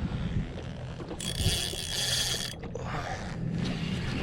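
Spinning fishing reel working against a hard-fighting snapper: the drag ratchets and buzzes as the fish takes line, loudest from about a second in to halfway, over a low steady hum.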